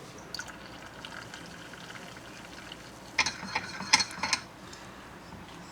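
Milk being poured into a cup of coffee over a faint steady hiss, with a brief run of clinks about three seconds in.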